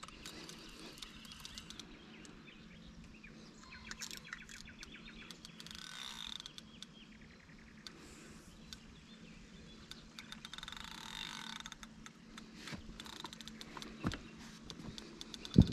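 Fishing reel clicking and buzzing in rapid runs while a hooked carp is played on a hard-bent rod. There is a knock about fourteen seconds in and a louder thump near the end.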